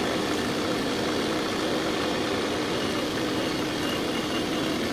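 An engine idling steadily at an even level, with no change in speed.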